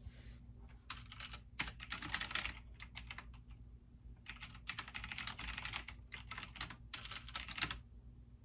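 Computer keyboard typing in quick bursts of clicks with short pauses between them, over a faint steady low hum.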